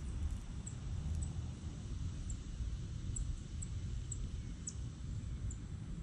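Outdoor ambience: a steady low rumble with a run of short, high-pitched chirps, roughly two a second, from a small bird or insect out of sight.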